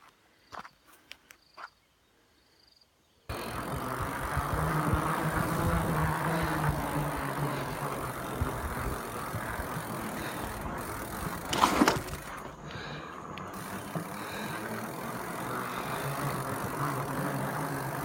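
A few faint clicks, then, starting abruptly about three seconds in, a bicycle rolling over a rough track: a steady noisy rumble of tyres and rattle, with one sharp knock about two thirds of the way through.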